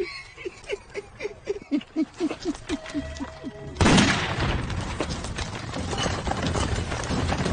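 A quick run of short, evenly spaced falling tones, then, just under four seconds in, a sudden loud burst of rifle gunfire and commotion that keeps going.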